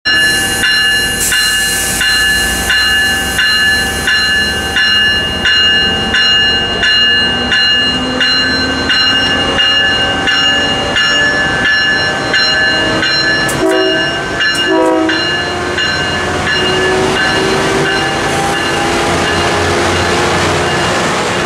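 Tri-Rail Brookville BL36PH diesel-electric locomotive pulling out of a station. Its bell rings about twice a second for the first several seconds, and the diesel engine's pitch then rises steadily as it throttles up.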